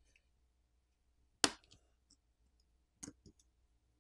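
Press-fit flex cable connectors on a OnePlus 10 Pro's sub-board being pried off with a plastic pry tool. One sharp click comes about one and a half seconds in, then a few faint ticks, then two quicker clicks about three seconds in.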